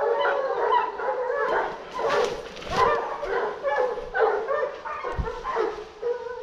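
A pack of hunting dogs baying without a break, many overlapping barks and yelps: the dogs holding a wild boar at bay.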